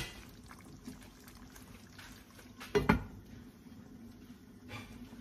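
Glass pan lid set down onto a wide pan of simmering pork menudo with a short knock about three seconds in, over the faint bubbling of the tomato stew.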